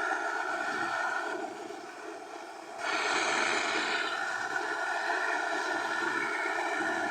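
Aluminum welding arc giving a steady buzzing hiss. It drops away about a second and a half in and strikes up again, brightest for a moment, just under three seconds in.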